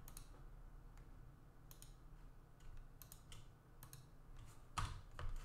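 Faint, irregular clicks of a computer mouse button, several in a few seconds, with a stronger pair near the end, over a low steady hum.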